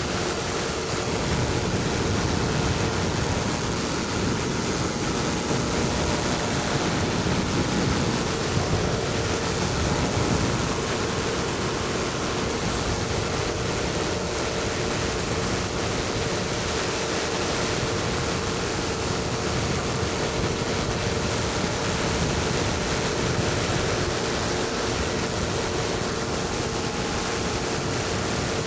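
Steady rush of airflow with a constant engine drone underneath, from a Mainair Blade flex-wing microlight climbing in cruise flight.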